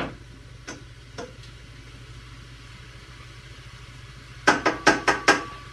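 A few knocks of a spatula in a frying pan of browning beef, then a quick run of five or six sharp clinks of cookware about four and a half seconds in, one leaving a brief metallic ring.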